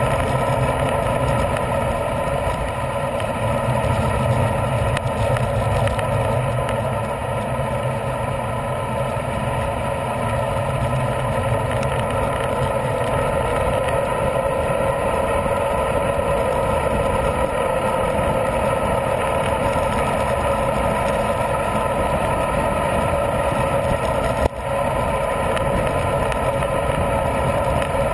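Steady rush of wind over a bike-mounted camera's microphone, with tyre noise from a road bike rolling along. There is a single knock about three-quarters of the way through.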